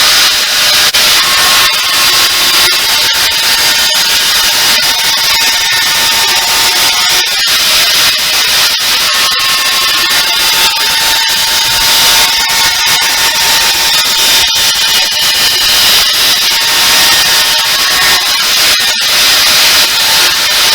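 Metabo 180 mm angle grinder running at full speed with an abrasive grinding steel, a steady loud rush with a high whine over it. The level wavers slightly as the work is pressed and eased.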